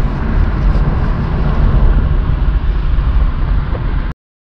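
Wind and road noise inside a moving convertible with the roof down: a steady, dense rumble that cuts off abruptly near the end.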